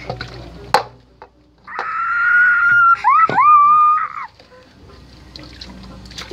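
A child's loud, high-pitched squeal, held for about a second, then breaking and rising into a second squeal that stops a little after four seconds in. A sharp click comes shortly before it.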